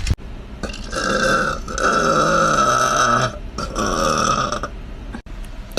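A woman belching loudly three times in a row, the middle belch long and drawn out.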